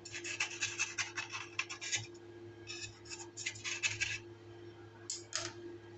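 Knife blade scraping around the inside edge of a metal cake tin, loosening the baked cake from the mould. The scraping comes in three spells of rasping strokes, the last one short.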